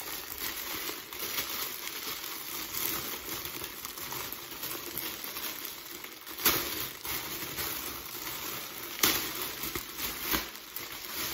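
Clear plastic bag crinkling and rustling as it is handled and pulled off a new handbag, with two sharper crackles about six and a half and nine seconds in.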